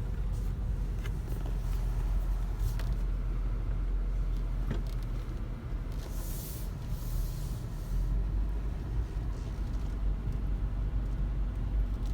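Road and engine noise inside a moving car: a steady low rumble, with a brief hiss about six seconds in.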